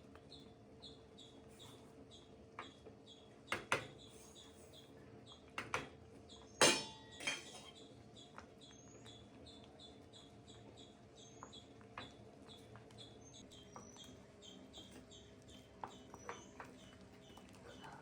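Kitchen utensils knocking and clinking now and then, the loudest a ringing metal clink about seven seconds in. Behind them a bird chirps over and over, about twice a second.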